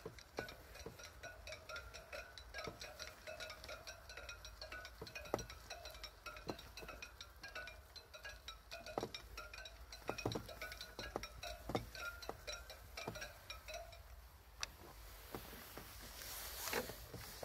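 Footsteps through dry leaf litter and twigs, a step about every second and a bit, over a steady high-pitched, rapidly pulsing chatter that stops about three quarters of the way through.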